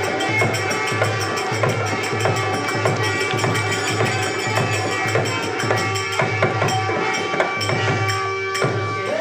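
Indian folk music with a steady, regular drum beat, jingling hand percussion and sustained melodic tones; the drumming drops away near the end.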